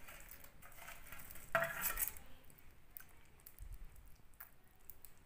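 Steel ladle clinking and scraping against a steel bowl and kadai as fried potato koftas are tipped into kadhi. The loudest clatter comes about a second and a half in, followed by a few lighter clinks.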